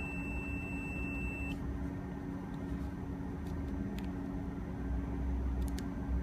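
A digital multimeter's continuity beep, one steady high tone for about a second and a half at the start, showing continuity between the compressor's terminal pins, so the windings are not open. Under it runs a steady low drone.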